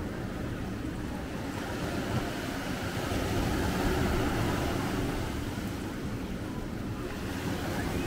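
Sea waves washing onto the shore, swelling to a peak about halfway through and then easing off.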